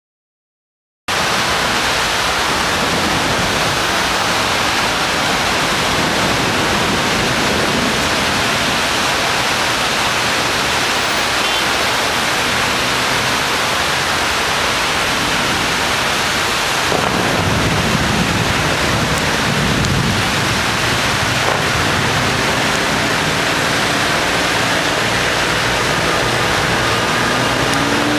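Heavy rain pouring steadily in a thunderstorm, cutting in abruptly about a second in. A low rumble swells for a few seconds past the middle, and faint traffic engines come through near the end.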